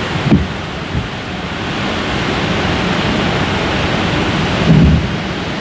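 Wind rushing steadily in the tail of a hurricane and buffeting the microphone, with a few low thumps, the biggest about a third of a second in and near the end.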